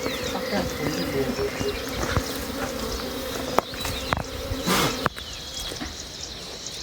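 Wild bees buzzing as a steady droning hum, which cuts off about five seconds in, with a few scattered clicks and short high chirps.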